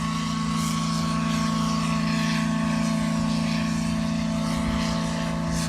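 Steamboat Natchez's steam whistle blowing one long steady blast, a low chord of several held notes over a hiss of escaping steam, sounded as the boat pulls out into the river.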